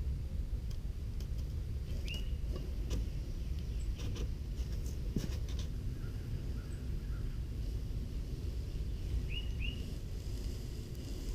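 Wind rumbling on the microphone, with a bird chirping several short rising notes, and a few light clicks and taps in the first half.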